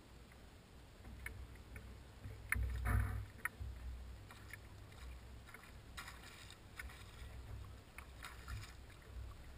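Low wind rumble on the microphone over water, with scattered small clicks and knocks from a fishing reel and the kayak and a few brief splashy swishes; the loudest knock and splash comes about three seconds in.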